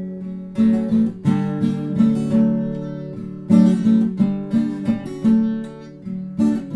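Background music: a song's acoustic guitar strumming chords that ring out, in an instrumental gap between sung lines.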